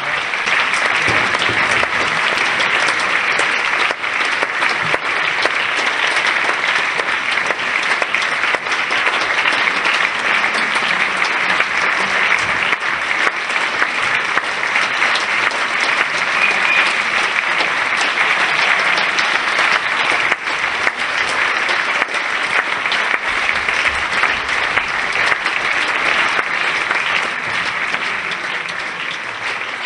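Sustained applause: many hands clapping steadily, easing off slightly near the end.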